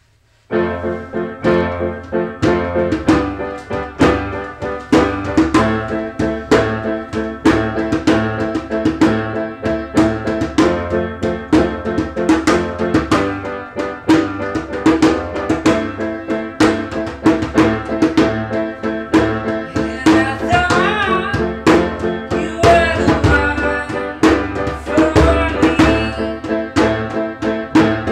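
A recorded song intro with a steady drum beat and pitched instruments, starting about half a second in. A higher wavering melody line joins twice in the last third.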